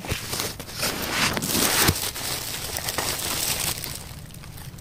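Close rustling and crinkling of leaves and clothing brushing against the phone, loudest about one to two seconds in.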